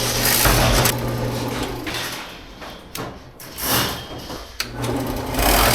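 Electric motor running with a steady low hum and a loud hiss, dropping away for a couple of seconds mid-way and then running at full strength again.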